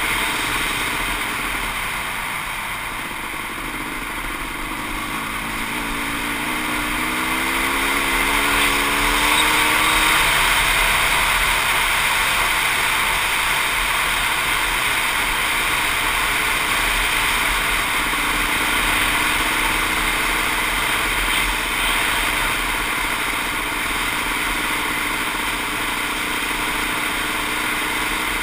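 Kawasaki KX500 dirt bike's 500 cc single-cylinder two-stroke engine running under way, heard from a helmet-mounted camera, with a steady rushing noise of wind and tyres on gravel. The engine rises in pitch as it accelerates, from about six to ten seconds in.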